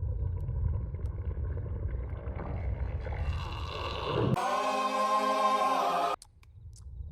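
A long, drawn-out cartoon burp: a low rumbling growl that rises in pitch after a couple of seconds, swells into a loud pitched belch and cuts off suddenly about six seconds in.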